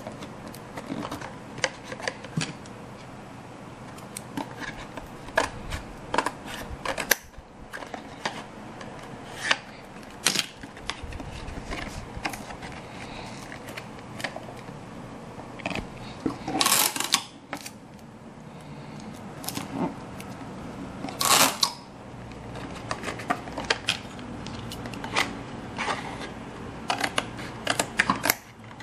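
Hands working with card and scissors at a table: many irregular clicks, snips and taps. Two longer, louder rustling scrapes come a little past the middle, a few seconds apart.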